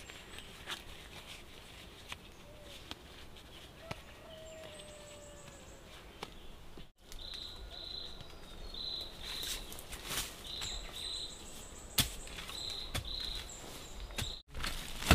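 Scattered rustling and snapping of leaves and bamboo stems as a person moves through bamboo undergrowth, sparse at first and busier in the second half, with one sharper snap. Short high chirps, repeated in pairs, run through the second half.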